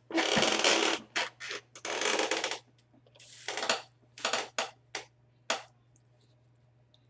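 Scratchy rubbing and scraping noises close to the microphone: three longer hissy scrapes, then four short ones, and quiet after about six seconds. A faint steady low hum runs underneath.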